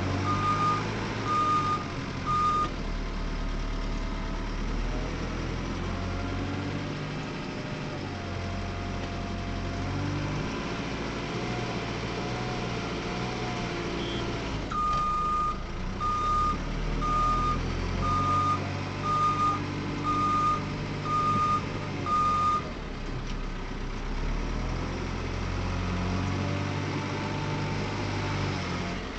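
JCB 3CX backhoe loader's diesel engine running and revving under load as it works, with shifting hydraulic whine. A reversing alarm beeps about once a second at the start and again for several seconds in the middle.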